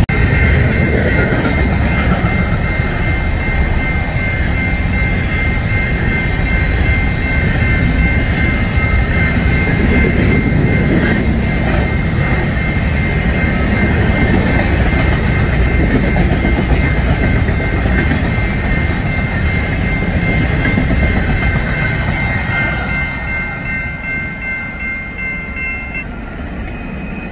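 Freight train of covered hopper cars rolling past, a steady rumble of wheels and cars with a steady high-pitched squeal over it. The sound fades as the last car passes and draws away, and the squeal stops near the end.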